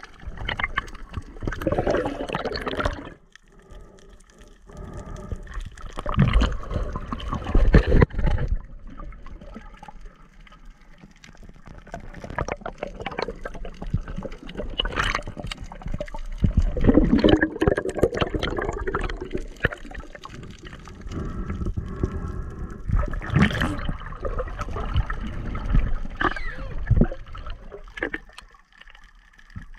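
Water sloshing and bubbling around an underwater camera as a snorkeler swims and dives, coming in uneven surges a few seconds long with quieter stretches between.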